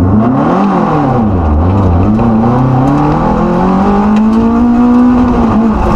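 A Subaru rally car's flat-four engine under hard driving, heard from inside the cabin. The revs rise and fall quickly twice in the first couple of seconds, then climb steadily in one long pull, with a brief drop near the end.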